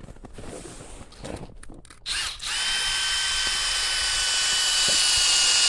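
A power drill with an auger bit starts up about two seconds in and runs steadily with a high whine, boring into frozen ground. Soft handling noises come before it starts.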